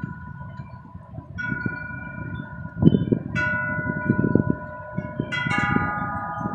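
Wind chimes ringing: about four notes struck a couple of seconds apart, each ringing on, over a low gusty rumbling noise.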